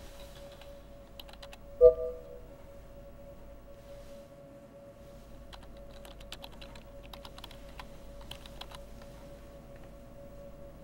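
Typing on a computer keyboard, light key clicks coming in scattered runs, over a steady faint hum. About two seconds in, a short loud chime sounds once and fades quickly.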